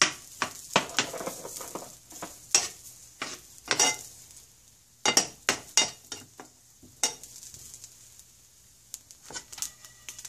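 Metal spoon scraping and clicking against a non-stick frying pan as fresh coconut pieces are stirred and dry-roasted, over a light sizzle. The strokes come irregularly, thinning out in the second half.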